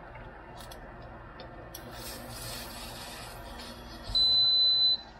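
Induction cooker's touch control panel giving a single high, steady beep of nearly a second as a button is pressed to set the heat. Before it, light clicks and faint scraping of a spatula in the nonstick frying pan.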